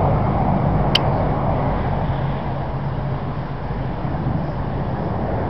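BAE Hawk T1 jets flying a display pass, their jet engines making a steady rushing noise that eases off a little over the first couple of seconds. A sharp click sounds about a second in.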